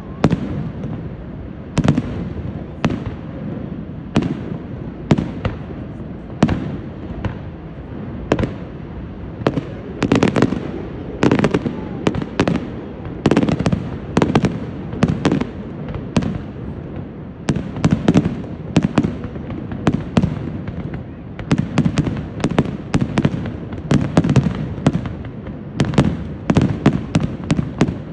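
Fireworks shells bursting overhead: a string of sharp bangs, a second or two apart at first and crowding into a rapid volley near the end, over a steady low rush.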